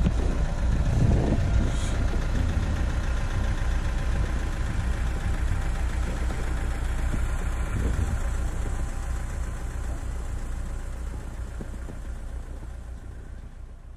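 Car engine idling steadily while it is being warmed up in the cold. The sound slowly fades away toward the end.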